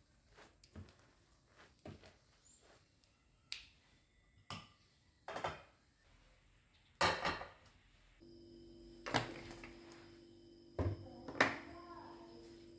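Metal kitchen tongs clinking and scraping against a stainless-steel colander as cooked spaghetti is lifted and dropped back: a string of separate knocks and rattles. About eight seconds in, a steady hum sets in under them.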